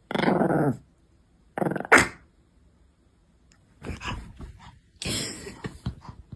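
Pomeranian dog making a few short vocal sounds: a pitched call at the start, a brief one about two seconds in, and breathier, noisier ones in the second half.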